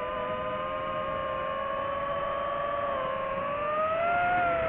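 DJI FPV drone's motors and three-blade propellers whining, several close steady tones at once. The pitch rises about three and a half seconds in, as the throttle is pushed up, then settles slightly.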